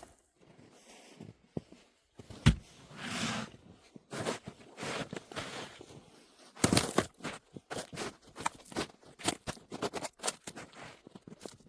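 Snow being worked: crunching and scraping, with single knocks, then a dense run of irregular crunches and clicks from about two-thirds of the way in.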